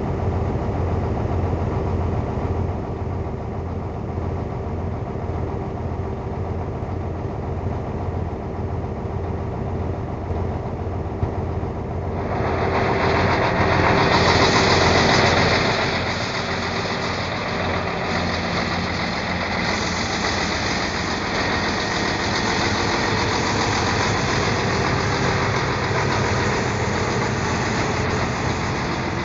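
DAF 55's engine running with a failed turbocharger: a steady low pulsing idle, then about 12 s in the engine picks up and a loud rushing hiss comes in. The hiss peaks a few seconds later and eases back, but a steady hissing stays over the engine.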